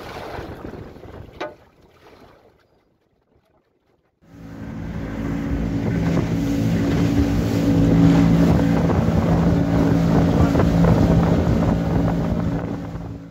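Wind and water against a drifting boat, with one knock a little over a second in, fading away. About four seconds in, an outboard motor comes in loud and runs steadily at speed, with wind and rushing water as the boat travels.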